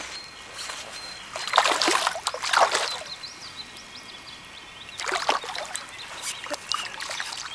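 Hooked carp thrashing and splashing at the surface of shallow water, in two bouts: about a second and a half in, and again about five seconds in.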